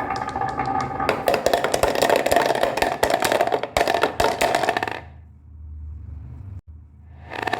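Marbles rolling and clattering through a marble run's wooden and chrome track pieces, a dense run of clicks over a ringing rolling tone. About five seconds in the clatter drops away to a faint low hum, and it starts up again near the end.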